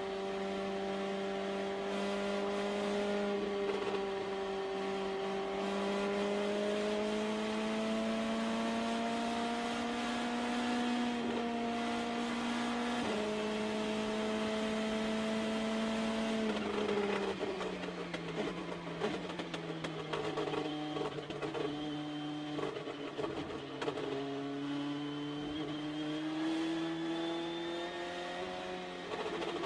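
Onboard sound of an Indy Lights race car's turbocharged four-cylinder engine at high revs, holding a steady note that slowly climbs. About halfway through the pitch drops sharply as the driver lifts and downshifts for a corner, and the engine runs choppy and crackly at lower revs before climbing again near the end.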